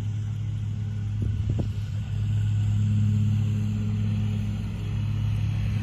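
A steady low mechanical hum, like a motor running, swelling a little in the middle, with two soft knocks about a second and a half in.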